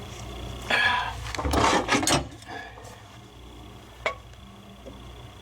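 Steel tool box drawer pushed shut against its detent: metal sliding and rattling in two spells in the first couple of seconds, then a single sharp click about four seconds in.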